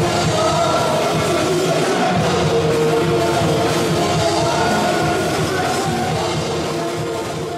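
Band music with singing, steady and full, beginning to fade out near the end.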